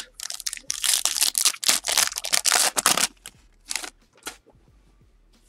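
A trading card pack's wrapper being torn open and crinkled: about three seconds of dense crackling rustle, followed by two short clicks as the cards are handled.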